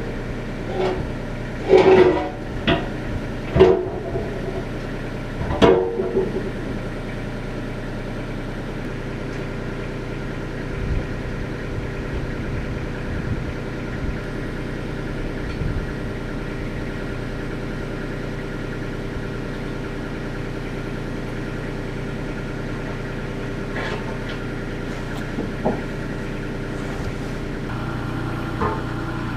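Kubota U35 mini excavator's diesel engine idling steadily. In the first six seconds a loose steel bucket gives a few loud metal clanks as it is tipped and shifted on the concrete floor.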